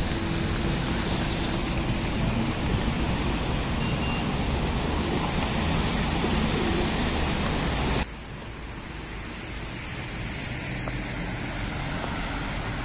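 Steady vehicle and traffic noise with a low rumble; about two-thirds of the way through it cuts off sharply to a quieter, thinner rumble that slowly grows louder.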